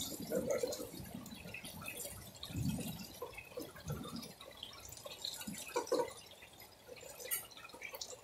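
Gentle rain falling, with irregular drips and splashes over a light steady hiss.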